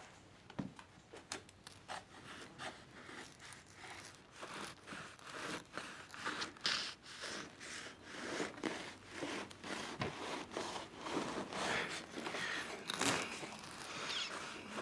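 A man crying softly: uneven, shaky breaths and sniffles broken by small clicks of the mouth and throat.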